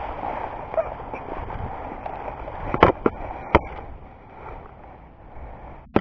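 Steady rustling noise, with three sharp clicks a little under three seconds in and another just at the end.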